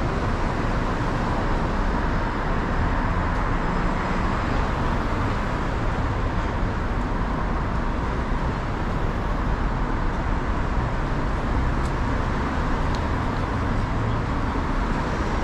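Steady city street traffic noise: cars and buses running along the road beside the footpath.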